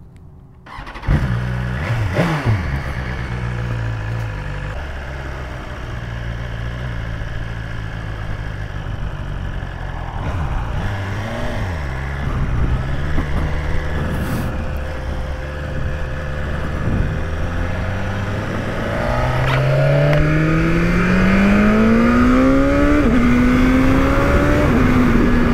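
2022 BMW S1000RR inline-four sportbike engine under way at low revs, its pitch stepping between gears. Near the end it pulls hard, the revs rising steadily, dropping once at a gear change and climbing again.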